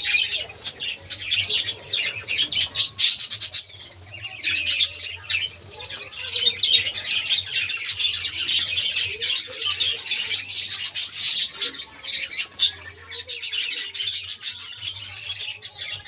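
A large flock of budgerigars chattering continuously: a dense, busy mix of quick warbles, chirps and squawks from many birds at once.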